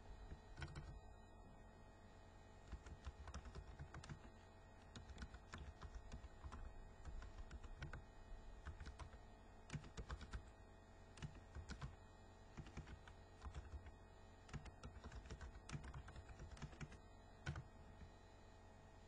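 Faint typing on a computer keyboard: irregular keystrokes in quick runs with short pauses between them.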